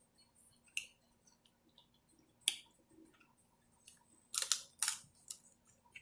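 Snow crab shells cracked and legs snapped by hand: a few sharp cracks spread through, the loudest a quick pair about four and a half seconds in.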